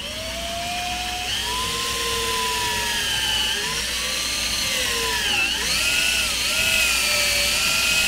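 Cordless drill running with a small bit, drilling a pilot hole into the centre of a steel barrel wedge set in an axe handle. The motor's whine rises and dips in pitch as the bit loads up in the metal.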